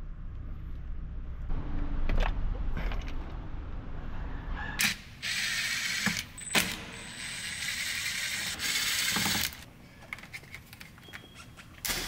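Small plastic clicks and rattles from steering-wheel airbag connectors and wiring being handled, with a steady hiss for several seconds in the middle.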